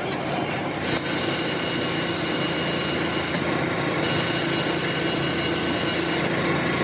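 A machine running steadily: a continuous mechanical noise with a few constant whining tones that holds without a break.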